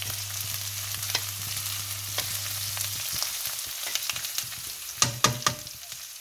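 Curry leaves, green chilies, ginger and garlic sizzling in hot oil in a pan while being stirred, with a cluster of sharp knocks of the utensil on the pan about five seconds in. A low hum underneath stops about halfway through.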